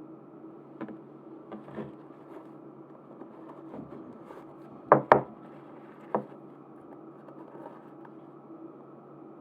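Small hard objects being handled on a table: scattered light taps and clicks, with a quick double clack about five seconds in and another clack a second later, over steady low background noise.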